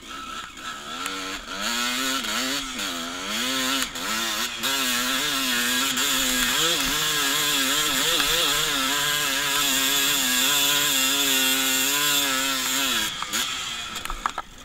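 Dirt bike engine running hard under throttle while climbing a steep cinder hill: the pitch rises and falls with the throttle at first, then holds steady at high revs, and drops away near the end as the throttle is rolled off.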